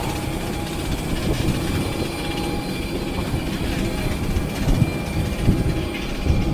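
Steady low rumble of airport apron machinery with a faint steady whine, and irregular thuds of footsteps on metal boarding stairs.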